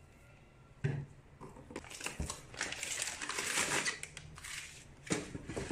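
Crumpled brown packing paper crinkling and rustling in an open cardboard box as a hand handles it. A knock comes about a second in and another near the end.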